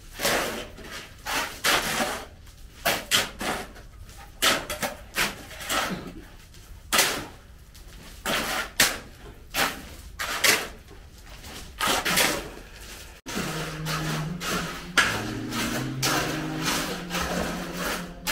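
Hoes and a shovel scraping and chopping into gravelly soil in quick, irregular strokes. After a sudden break about 13 s in, the scraping goes on over a low humming tone that shifts in pitch.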